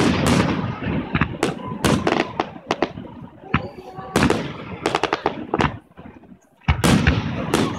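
Aerial firework shells bursting in quick succession, a run of sharp bangs and crackles. They drop to a brief lull about six seconds in, then the bangs start again.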